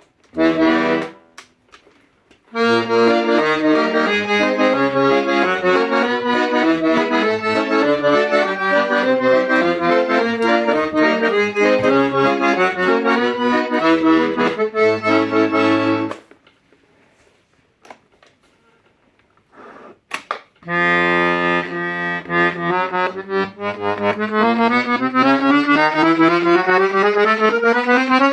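Hohner Organola being played. First a few short chords, then a tune with a bass part for about thirteen seconds, then a pause. It ends with a held chord and a long run of notes climbing steadily in pitch.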